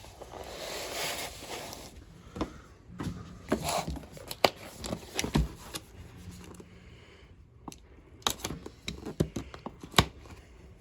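Cardboard box and packaging being opened and handled: a sliding, rustling scrape over the first two seconds, then scattered clicks, taps and knocks.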